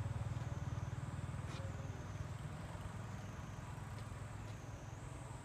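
A motor vehicle's engine running with a low, pulsing rumble that slowly fades away. A faint high whine dips and rises in pitch every second or two.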